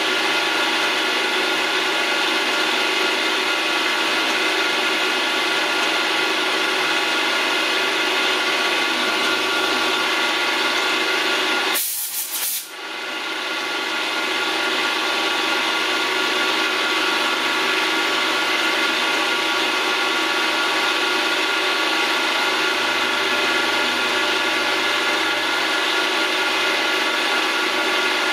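Milling machine running steadily with its end mill cutting a small knob held in a chuck on a dividing head, a dense, even machining whine. About twelve seconds in it is broken by a short click and a brief dropout.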